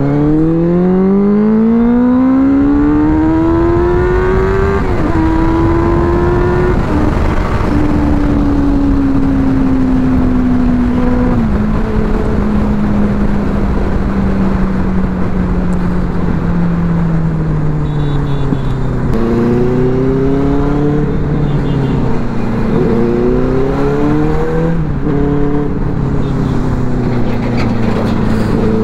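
Benelli motorcycle engine pulling away and accelerating hard, its pitch rising through the gears with shift breaks about five and seven seconds in, then cruising and easing off, before accelerating through gears again in the last third. Steady wind rush underneath.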